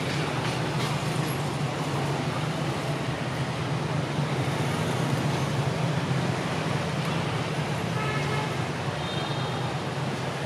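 Steady background drone, an even rushing noise over a low hum that holds the same level throughout, like a running engine or road traffic. A few faint high chirps come in about eight seconds in.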